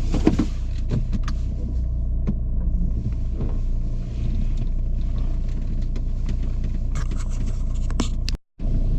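Steady low rumble of road and engine noise inside a Volvo XC90's cabin as it is driven, with a few faint knocks and ticks; the sound drops out for a moment near the end.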